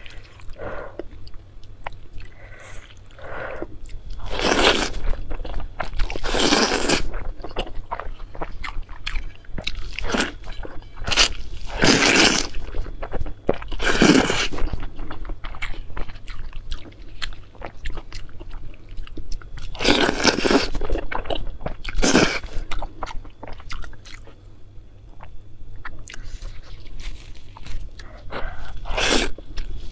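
Close-miked eating: a person chewing and biting soft, saucy food, with several louder slurps of under a second each as food is drawn from the bowl into the mouth.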